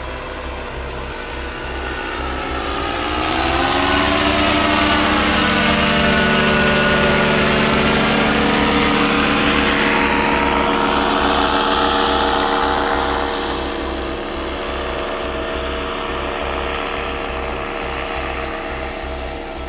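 Paramotor engine and propeller droning as it flies past. It rises in pitch and loudness as it approaches, is loudest for several seconds, then drops in pitch as it passes and goes on as a quieter, steady drone.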